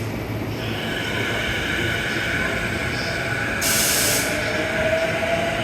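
Underfloor equipment of a stopped E233-series electric train: a steady machine hum with a high whine. A short, loud burst of air hissing comes a little past halfway in, and a mid-pitched tone slowly rises near the end.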